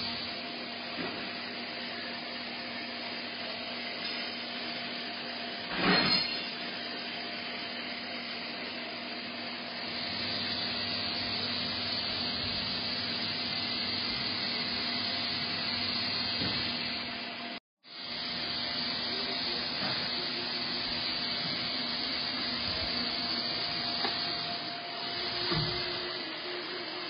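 Steady hum and hiss of a powered-up Mazak VTC-16A vertical machining center standing idle, with faint steady tones and a single clunk about six seconds in. The sound cuts out completely for a moment a little past the middle.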